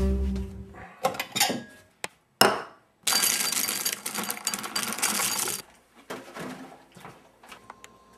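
Dry breakfast cereal poured into a bowl, a rattling rush lasting about two and a half seconds. It follows a kitchen cupboard door opening and a sharp knock, and a few light clicks come after it.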